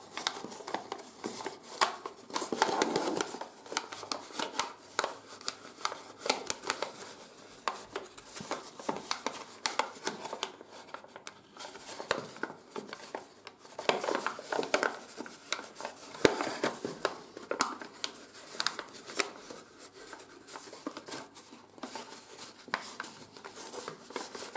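A sheet of 80 g/m² office paper, folded into an origami boat, crinkling and crackling irregularly as fingers crease and shape it, louder around three seconds in and again around fourteen seconds in.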